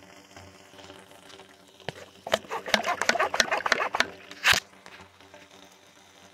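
Water sprayed into a hot rocket stove's metal feed tube, sizzling and popping. Faint crackling at first, then a dense run of crackling pops from about two seconds in, ending in one loud sharp burst a little past four seconds.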